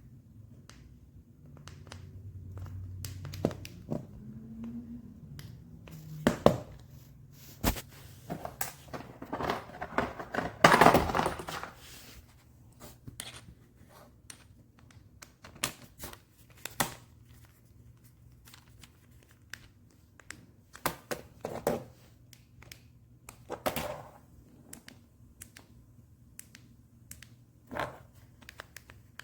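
Objects being handled: a string of irregular clicks and knocks, with a louder stretch of rustling and crinkling about ten seconds in.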